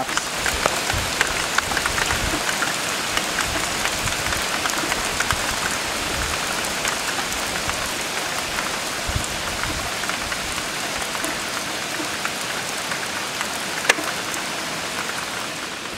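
Heavy thunderstorm rain of big raindrops, a steady hiss with many small drop ticks, and one sharper tick near the end.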